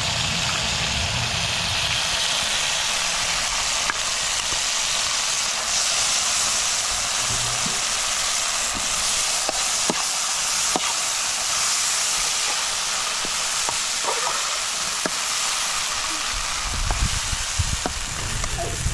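Dried barberries sizzling in oil in a metal frying pan, stirred with a metal spoon that taps and scrapes the pan now and then over a steady hiss.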